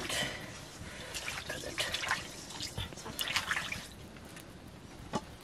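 Water splashing and dripping in a metal pot as it is worked by hand, in a few short spells, with a light knock near the end.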